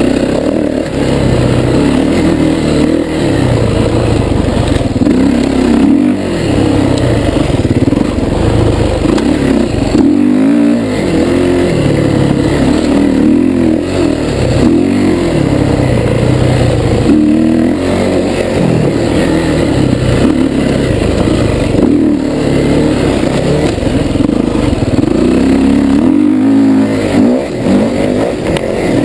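Kawasaki dirt bike engine racing, heard up close from the rider's onboard camera. The engine note keeps rising under throttle and dropping back as the rider shifts and rolls off, over and over.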